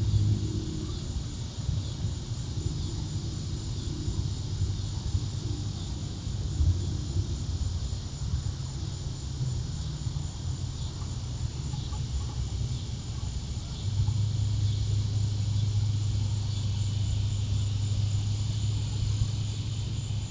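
Insects chirring steadily in the high range over a low, steady hum, which grows louder about fourteen seconds in.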